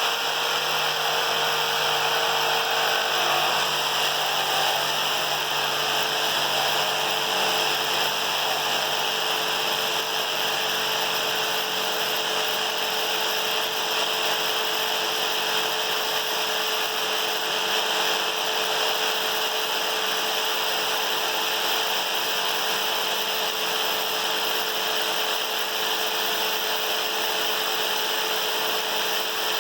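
Harbor Freight jigsaw with a 6-tooth-per-inch wood-cutting blade on its lowest orbital setting, running at a steady speed as it cuts through clamped dimensional lumber. A constant motor whine sits under the loud, continuous chatter of the blade.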